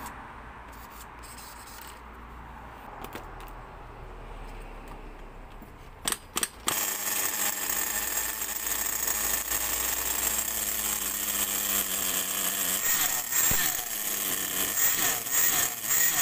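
Nitro engine of a Hot Bodies Lightning 10 RC car starting: two short bursts about six seconds in, then it catches and runs steadily with a high buzz, the revs dipping and rising a little later on.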